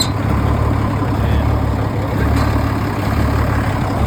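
M35A2 deuce-and-a-half truck's multifuel inline-six diesel idling steadily and loudly through its factory straight-piped exhaust, which has no muffler.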